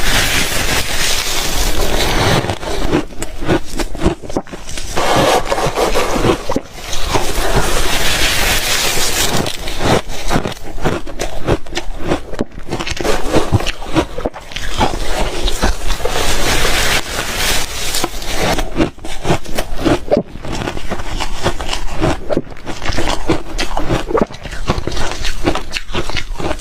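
Ice being bitten and chewed in the mouth: a dense, continuous run of crunching and crackling bites.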